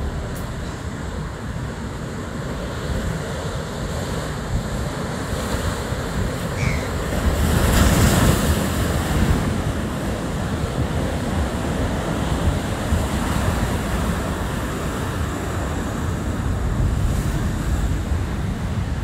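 Rough sea surf breaking against rocks and concrete armour blocks, with wind buffeting the microphone. It swells to a louder crash about eight seconds in.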